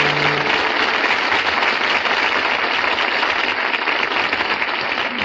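Audience applauding steadily. A held music chord underneath ends about half a second in.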